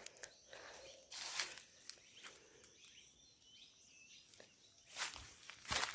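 Three short rustling, brushing noises, about a second in and twice near the end, the last the loudest, over faint bird chirps and small clicks.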